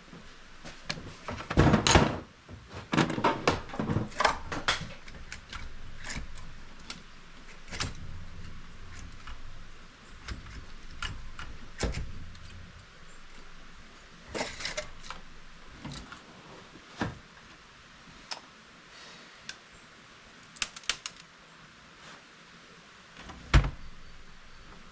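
Intermittent metallic clicks, clinks and knocks of hand tools and loose engine parts, from work taking the cylinder head off a motorcycle engine. The busiest stretch comes in the first few seconds, and there is one loud knock near the end.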